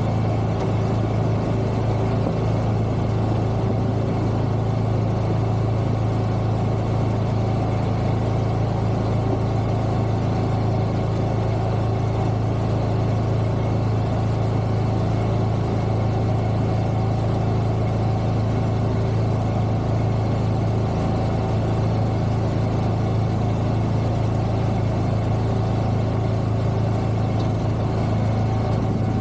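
Wilcraft amphibious vehicle's engine running at a steady, unchanging speed with a low hum as the craft drives through open water.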